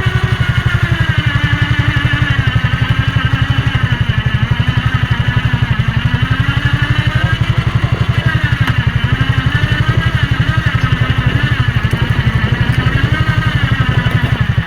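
A small engine idling steadily with an even, rapid throb, its pitch wavering slightly.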